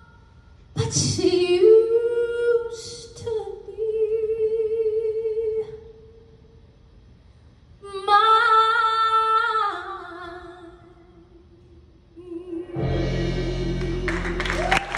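A woman singing solo into a microphone, slow phrases with long held notes and vibrato, and pauses between the phrases. Near the end, as the last note is held, the audience begins to cheer and applaud.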